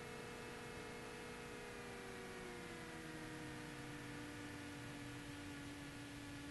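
Cessna 172's engine heard faintly through the cockpit intercom feed as a steady hum with a whine above it. About two seconds in, the pitch slides down and settles lower as power comes off for the landing.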